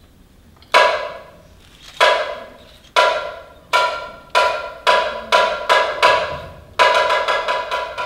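Chinese opera percussion for a Kunqu performance, struck in single ringing hits. The hits start about a second apart, speed up steadily, and run into a rapid roll of strikes near the end.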